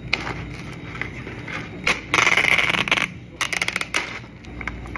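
Ice cubes rattling and clinking in clear plastic cups, with a louder stretch of about a second of shaking about two seconds in, then a quick run of clicks.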